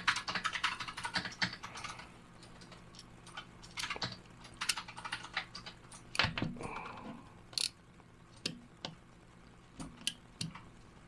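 Computer keyboard being typed on: a fast run of key clicks for about two seconds, then scattered single clicks and taps.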